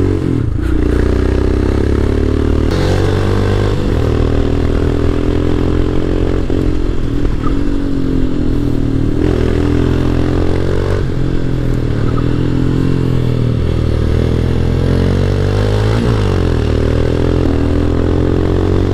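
Royal Enfield Himalayan's single-cylinder engine thumping under way, its note rising and falling repeatedly as the throttle opens and closes.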